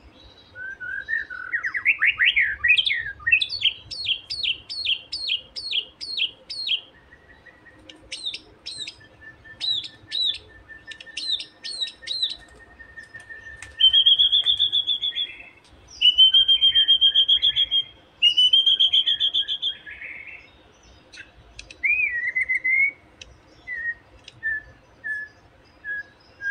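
A young wild white-rumped shama (murai batu) singing a varied song. It opens with a rising sweeping trill, then a run of about eight repeated down-slurred notes, then sharp notes over a thin steady whistle. Three loud buzzy phrases come in the middle, and a string of short clipped notes closes it.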